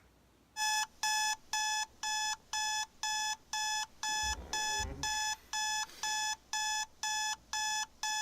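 Amazon Alexa smart speaker alarm beeping: a high pitched beep repeating evenly about twice a second, starting about half a second in. A brief low rumble of movement comes about halfway through.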